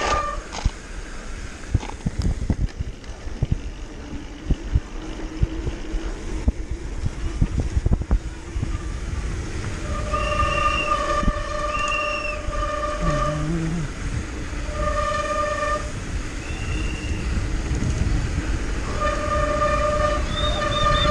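A mountain bike clattering and knocking over rough downhill ground, with a low rumble. From about halfway, repeated steady horn blasts of about two seconds each start and stop several times.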